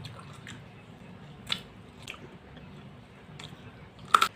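A person eating close to the microphone: wet chewing and short crunchy bites into chilies with sambal. A sharp bite comes about a second and a half in, and the loudest, a quick cluster of crunches, near the end.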